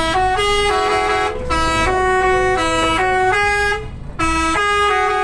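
Indonesian bus 'telolet' horn: a multi-tone air horn playing a tune of short held notes that step between a few pitches, with a brief break about four seconds in.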